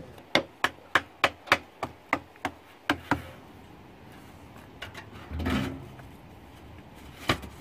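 Rapid series of sharp wooden knocks, about three a second, fading out after about three seconds: split pine wood being knocked tight with a hatchet as it is packed into a tar-burning drum. Later a brief rustle and a single knock.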